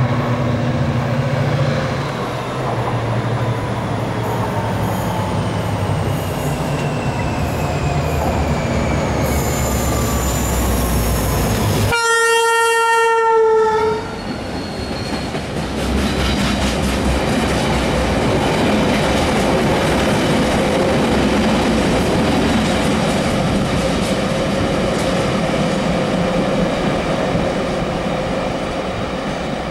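NIR 111 Class diesel locomotive running under power as it approaches, its engine note falling gradually. It sounds its horn loudly for about two seconds as it passes, roughly midway through. The empty ballast wagons then roll past, their wheels clicking over the rail joints, and the sound eases off near the end.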